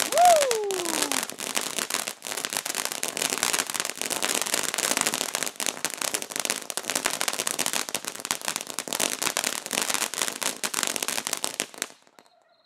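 Ground fountain firework spraying and crackling with dense, rapid pops, which cut off abruptly near the end, leaving crickets chirping faintly. A brief falling tone sounds just after the start.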